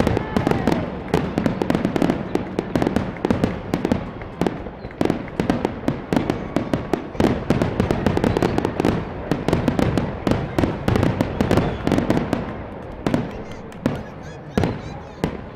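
Aerial fireworks shells bursting in a rapid, dense barrage of bangs, which come fewer and quieter over the last couple of seconds.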